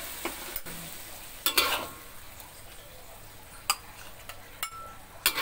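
Metal spatula scraping a wok and clicking against a plate as stir-fried broccoli and tofu are scooped out. There is a louder scrape about one and a half seconds in and a few sharp clicks near the end, over a faint sizzle left in the pan just after the stove is turned off.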